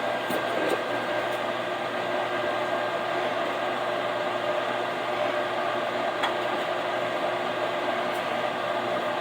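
Steady whirring hum of a running kitchen appliance's fan motor, even throughout, with a couple of faint clicks near the start and a single tick about six seconds in.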